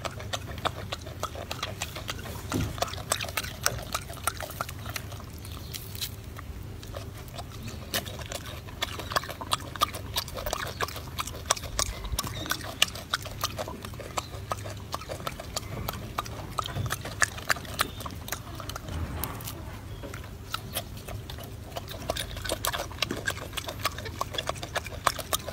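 Golden snub-nosed monkey chewing a piece of orange with its mouth open, a steady run of wet smacking clicks, several a second.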